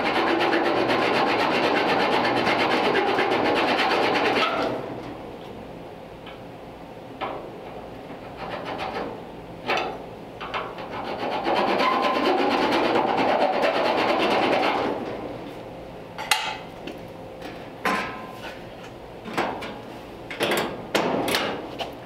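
Hand file rasping across the steel face of a Model T door latch, taking off its sharp edge, in two long runs of strokes: one at the start and one about halfway through. Scattered sharp clicks and knocks come between the runs and throughout the last few seconds.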